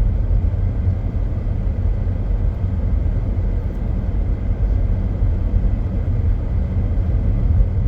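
Steady low rumble of a car driving, heard inside the cabin: road, tyre and engine noise.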